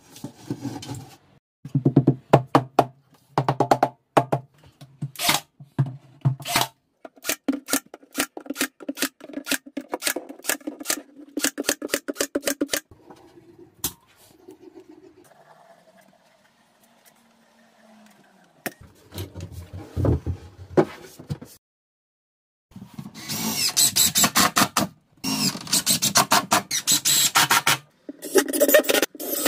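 Carpentry work noise: a long run of sharp knocks and clicks against a timber shelf frame, then, near the end, a yellow DeWalt cordless driver running in two long bursts as it drives screws into the shelf.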